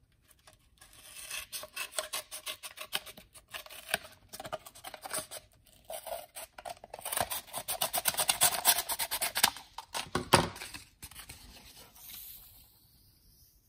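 Scissors cutting through the pleated element of a used fuel filter: a long run of short snips, thickest between about seven and ten seconds in, easing off into a softer rustle of the pleats near the end.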